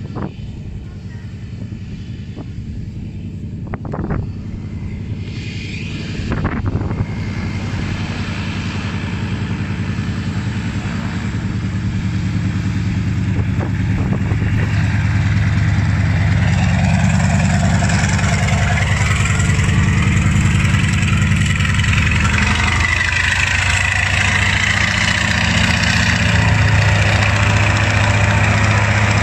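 Antonov An-2 biplane's nine-cylinder radial engine and propeller running, growing steadily louder for about the first half and then holding steady. A few sharp knocks stand out in the first seven seconds.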